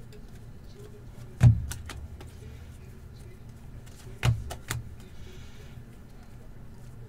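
Sharp knocks of card stacks and hands against a tabletop as a pile of hockey cards is handled and sorted: one loud thud about a second and a half in with two light taps just after, then two more knocks near the four-second mark, over a low steady hum.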